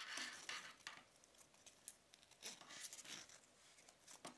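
Faint rustling and scraping of a 20mm black nylon NATO watch strap being pulled through a watch's lugs, in a few short bursts, with a couple of light clicks near the end.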